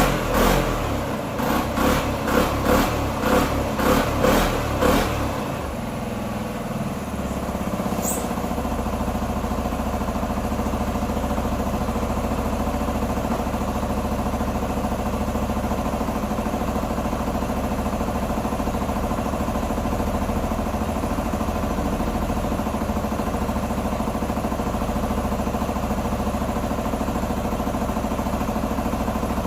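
Q2 125 Dynamic motorcycle engine revved in quick repeated blips for about five seconds, then settling into a steady idle.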